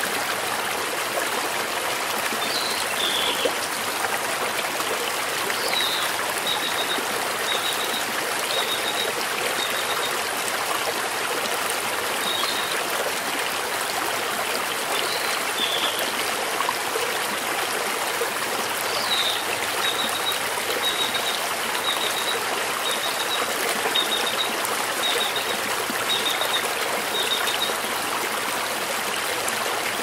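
Small, shallow mountain stream rippling and splashing over stones, a steady rush of water. A wild bird calls in the background with high notes: brief downward slurs and two long runs of short repeated notes, about one or two a second, one early and one in the second half.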